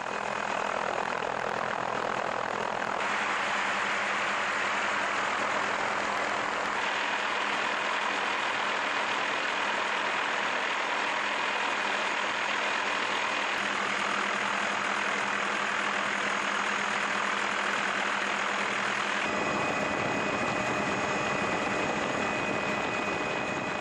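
Steady helicopter engine and rotor noise with a faint hum in it, its tone shifting abruptly about three times.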